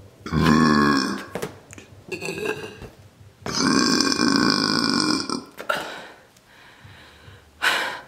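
A woman burping into the neck of a latex balloon, inflating it: a burp of about a second, a shorter weaker one, then a long one of about two seconds. A short sharp sound follows near the end.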